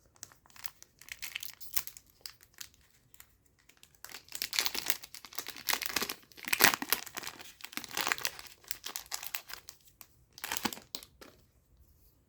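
Foil trading card booster pack being torn open and crinkled: irregular crackling and tearing of the foil wrapper, busiest in the middle, with a last short rustle near the end.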